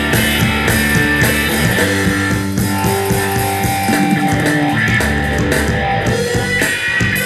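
Band music: an electric guitar played through a Valeton GP-100 multi-effects pedal, with bass guitar and drums.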